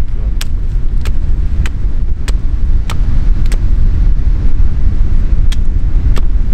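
Strong gusting wind buffeting the microphone, with regular sharp knocks of wood being struck, about one every 0.6 seconds. The knocks pause for about two seconds past the middle and then resume.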